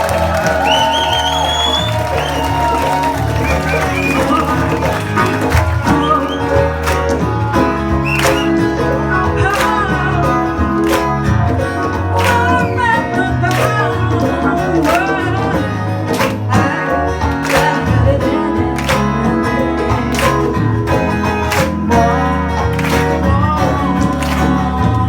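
Live band music with a steady drum beat, a voice singing over it at times.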